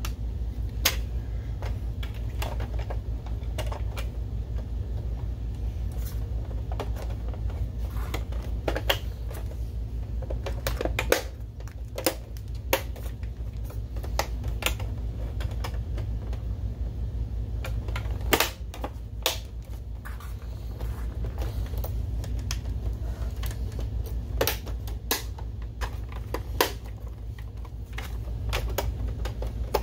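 Irregular clicks and knocks of hard plastic as a projector's plastic top cover is pressed and snapped onto its housing, a few louder snaps standing out, over a steady low hum.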